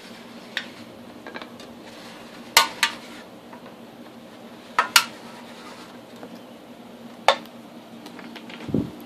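Sharp metallic clicks and clinks of a metal can being handled and scored around with a blade against a guide block, about half a dozen spread out, some in quick pairs, with a duller knock near the end. A faint steady hum runs underneath.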